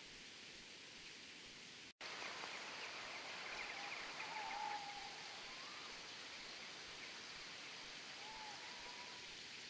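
Faint outdoor ambience: a steady hiss of weather or distant water, with a few faint bird calls. It breaks off for an instant about two seconds in.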